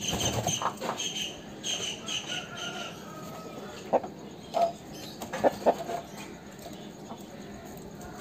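Aseel rooster clucking: short, sharp calls, about four of them between four and six seconds in. Before that, high repeated chirping in the first three seconds.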